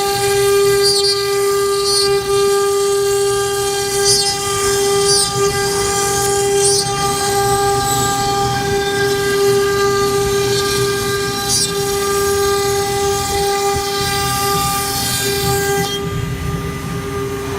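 CNC router spindle running with a steady high whine while the machine cuts, with a swishing cutting hiss that comes and goes and drops away near the end.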